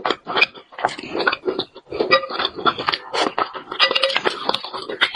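Close-miked eating sounds from a person chewing braised fish: a quick, irregular run of wet mouth clicks and smacks.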